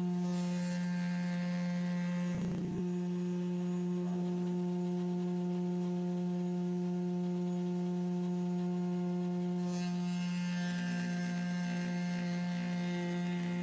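Router table motor spinning a large profile moulding cutter at reduced speed, a steady hum. A brief burst about two and a half seconds in, and a hiss of cutting from about ten seconds in, as pine is fed past the cutter.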